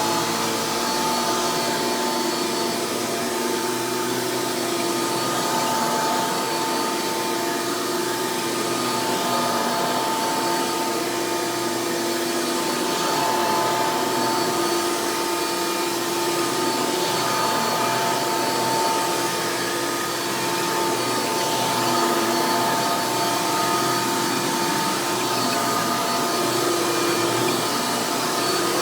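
Hoover Futura Elite upright vacuum cleaner, rebuilt with a Caddy Vac lower base, running steadily and pretty loud: a constant motor whine with a couple of steady tones over a rushing airflow noise.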